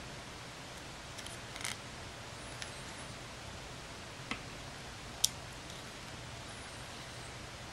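Scattered small clicks and taps from the plastic and metal parts of a partly disassembled Canon PowerShot SX130 IS compact camera being handled, the sharpest about five seconds in, over a steady low hum and hiss.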